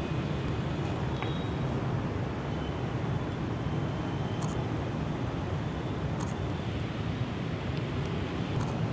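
Steady outdoor city traffic hum, low and even, with a few faint short clicks.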